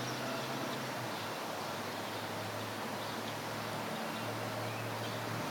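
Distant train, heard as a low steady drone under a wash of outdoor hiss, the drone shifting slightly about four seconds in.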